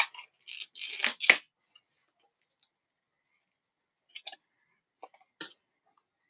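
Handling noise from laptop RAM modules and their plastic container: a quick cluster of sharp clicks and a short rustle in the first second and a half, then a few faint clicks later on.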